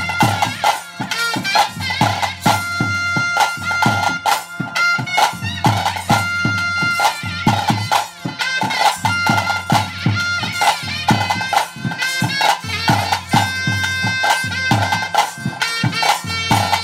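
Traditional bhoota kola ritual music (kola vadya): a shrill reed wind instrument playing held and bending notes over fast, dense drumming.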